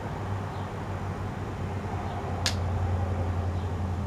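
A 5 kVA transformer hums steadily while it drives heavy alternating current through four Duracell D cells in series; the hum grows a little louder after one sharp click about two and a half seconds in.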